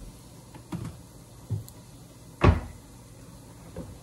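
A wooden kitchen cabinet door being opened and shut, heard as a few dull knocks, the loudest about two and a half seconds in.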